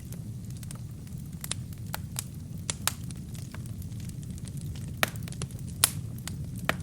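Wood fire burning with a steady low rumble and irregular sharp crackles and pops from the kindling, the loudest pops a little after five seconds and near six.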